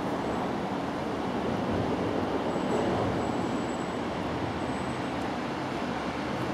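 Steady, even outdoor background noise with no distinct events.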